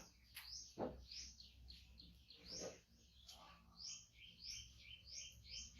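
Small bird chirping repeatedly, short high rising chirps about twice a second. Two soft low thumps come about a second in and again at about two and a half seconds.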